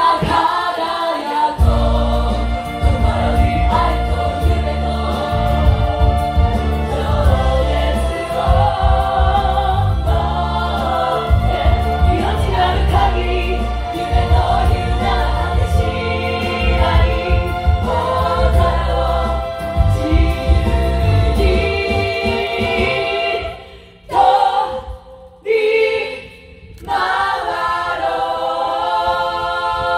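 Revue stage song: a group of voices singing together over instrumental accompaniment with a strong bass. The music briefly drops out twice near the end, then comes back in.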